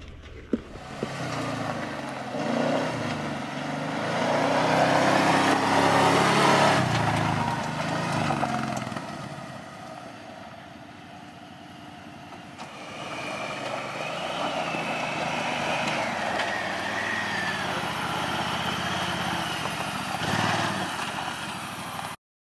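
ATV engine running while riding along the trail, its pitch rising and falling with the throttle. It is loudest for a few seconds early on, eases off, then holds steadier before stopping abruptly near the end.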